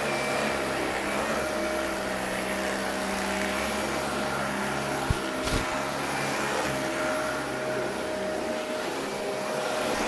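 Dyson DC40 ball upright vacuum cleaner running steadily while pushed over carpet, its motor giving a constant whine over a rushing hiss of suction. A couple of sharp knocks about five seconds in.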